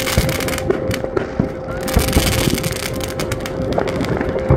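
Fireworks bursting: a rapid, uneven run of bangs and crackles.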